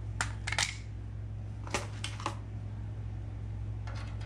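A few short, sharp clicks and taps, in two quick clusters near the start and another click near the end, from hand tools and rivet parts being handled while riveting an aluminium stabilizer. A steady low hum runs underneath.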